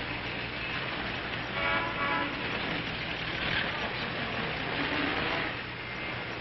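City street traffic noise, with a car horn sounding once for about half a second, about a second and a half in.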